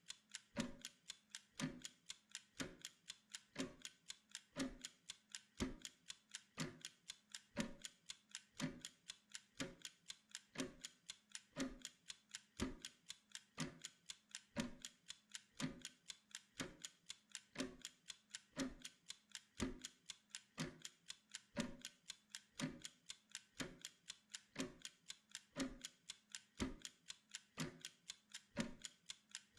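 Steady clock-like ticking of a timer: quick, even ticks with a heavier tick about once a second.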